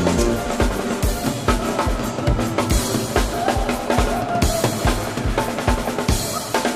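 Show music in a drum-led passage: a drum kit keeps a steady beat of bass drum and snare hits while the brass mostly drops out.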